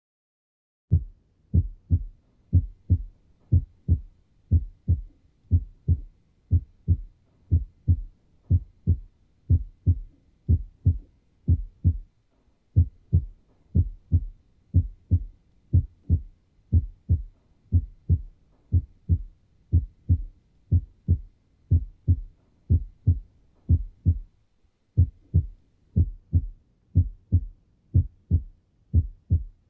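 Normal human heart sounds: a steady rhythm of paired thumps, the first and second heart sounds ('lub-dub') of each beat, with no murmur. The beating starts about a second in and pauses briefly twice.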